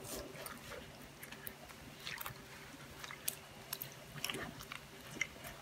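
Rubber-gloved hands squeezing and massaging a silk scarf under thick indigo dye liquid in a large ceramic vat: faint, irregular wet squelches, small sloshes and drips.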